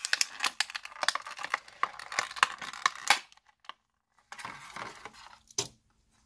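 Stiff clear plastic blister packaging crackling and clicking in the hands as a toy figure is worked out of it. A dense run of sharp crackles lasts about three seconds, then there is a short pause, softer rustling, and one last click near the end.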